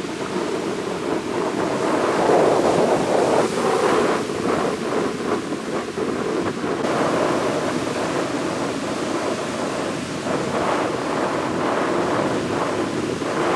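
Rough sea surf breaking continuously on a sandy beach, whipped up by a strong monsoon wind, with gusts buffeting the microphone.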